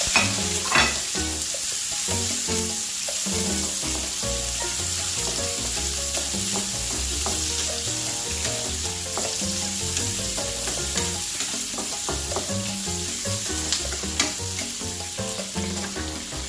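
Garlic, onion and ginger sautéing in hot oil in a pan: steady sizzling, with a few sharp clicks of a utensil against the pan as it is stirred.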